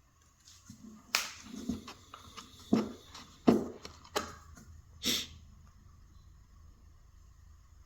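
Handling noises: a quick series of sharp taps and clicks, about six in four seconds, as a speaker and its parts are handled during a foam surround repair.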